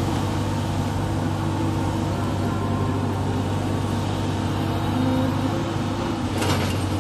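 Heavy diesel engine of a rotary pile-drilling rig running steadily, a low even drone. A brief sharp noise cuts through it about six and a half seconds in.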